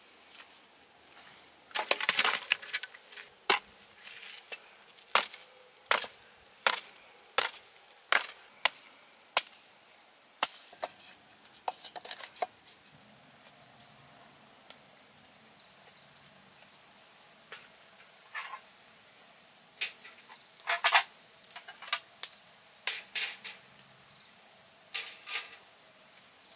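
Dry wooden branches being snapped by hand: a run of sharp cracks, more than one a second, for about ten seconds. Later, scattered lighter clicks and knocks.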